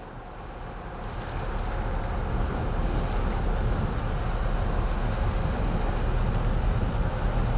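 Deep, steady rumble of the passenger ferry La Suprema's diesel engines as the ship passes close by, growing louder over the first couple of seconds and then holding steady.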